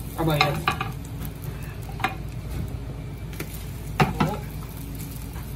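Tamagoyaki frying in a square pan over a gas flame: steady low burner rush and sizzle, with a few sharp knocks of a wooden board and utensils against the pan, the loudest about four seconds in.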